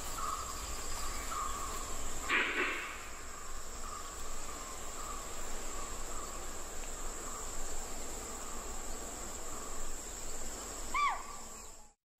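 Tropical forest insect chorus: a steady high-pitched drone, with short chirps repeating about once a second. A brief rustling burst comes a couple of seconds in, and one short call rising and then falling comes near the end, just before the sound cuts out.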